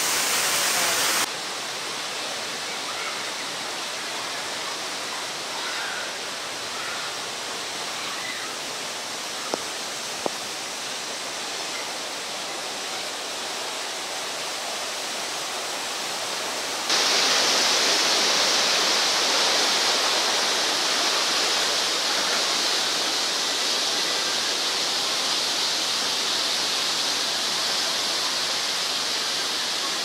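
Steady hissing rush of water, dropping to a lower level about a second in and rising sharply to a louder, brighter hiss at around 17 seconds. Two faint clicks near the middle.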